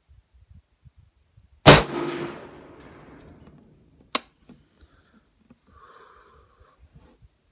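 A single shot from a Smith & Wesson M&P 10 semi-automatic .308 rifle firing Federal Fusion 165-grain ammunition: one loud crack with a long echoing tail. About two and a half seconds later comes one short, sharp metallic click.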